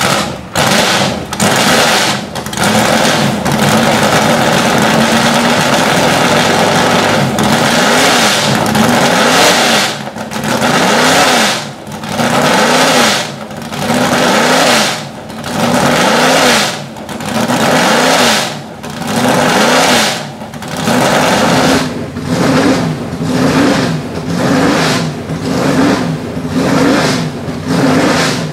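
The Lola T70 Mk III B's 450 hp Chevrolet V8 racing engine starts suddenly and runs loud and rough during its warm-up. In the second half it is blipped over and over, the revs rising and falling about every second and a half.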